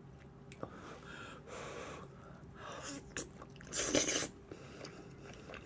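Eating sounds close to the microphone: quiet chewing with a few short, noisy mouth and breath sounds, the loudest about four seconds in.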